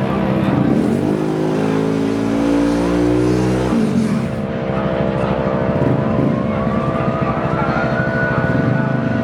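Yamaha X-Max racing scooters running hard on a drag run. The engine pitch climbs for a few seconds and drops off suddenly about four seconds in, then settles into a steady high-revving drone with a thin whine rising over it.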